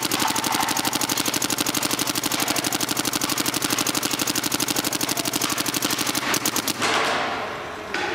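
Planet Eclipse GSL electropneumatic paintball marker firing a fast, even string of shots. The shots stop after about six seconds with a few last spaced ones as the pod of paint runs out.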